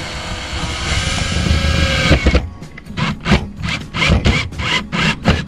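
Cordless drill-driver running steadily as it drives a screw through a plastic strap retainer into a caravan's exterior service hatch, then stopping about two seconds in, followed by a run of short, irregular sounds.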